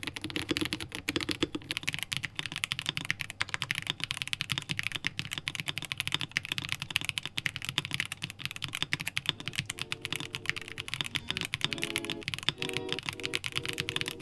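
Fast typing on mechanical keyboards with linear switches: a Rover84 fitted with KTT Kang White linear switches, then partway through a Rover84 Lightyear fitted with Quark Matte linear switches. It is a dense run of key clacks with no pauses. Soft background music comes in about two-thirds of the way through.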